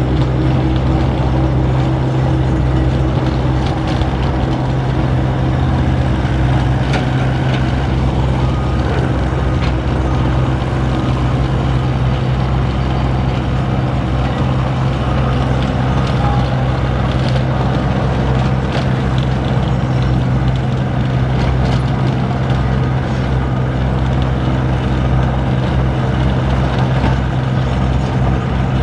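Diesel engine of heavy construction equipment running steadily, with a few faint knocks over the hum.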